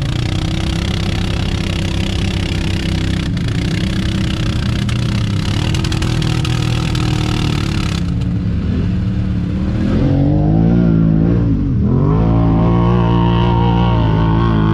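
Lifted four-wheeler engines running in deep mud, with a steady rushing noise over them until about eight seconds in. About ten seconds in an engine revs, its pitch swinging up and down, then holds at a higher, steadier speed.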